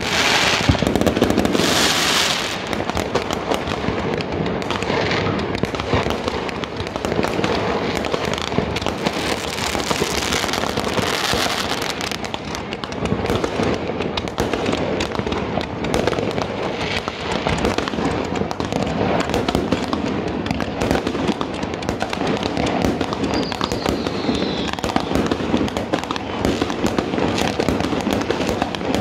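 Many fireworks going off at once: a continuous rapid crackle of pops and bangs, with denser crackling spells at the start and about a third of the way in.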